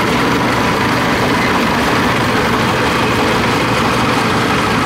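Engine of a crawler-tracked rice combine harvester running steadily up close.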